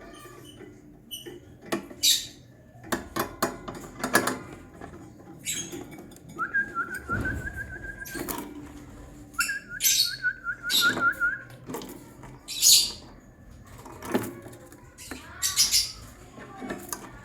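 Lovebirds giving short, sharp, shrill chirps and screeches at irregular intervals. Two longer wavering whistles, each about two seconds, come near the middle.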